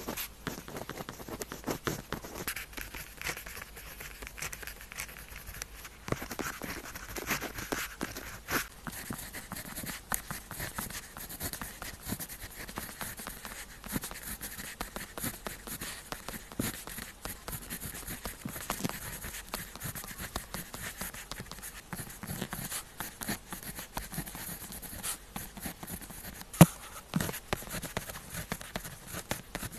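Pen tip writing on paper, close up: continuous scratchy strokes with small ticks as the pen touches down and lifts, and one sharper tap near the end.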